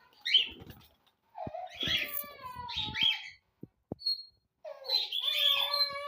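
Long, wavering meow-like cries from a pet animal: two drawn-out calls that bend up and down in pitch, the first lasting about two seconds, the second starting near the end, with a short sharp call near the start and a brief high chirp in the gap.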